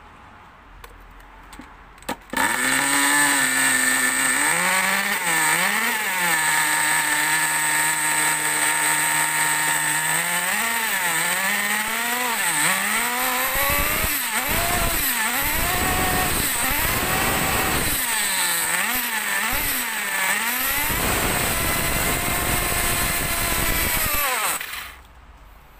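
FTX Zorro 1/10 short course truck's .18 nitro engine catches about two seconds in and runs at a steady idle. It is then revved up and down again and again, held at a higher steady speed, and cuts off suddenly near the end.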